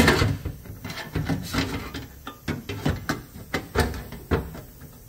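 Irregular light knocks and clicks, several a second, growing fainter near the end.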